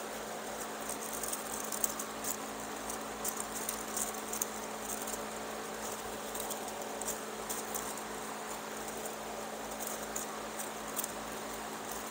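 Light crackling rustles and small ticks of a long strand of chair cane being wound by hand into a coil, over a steady low hum.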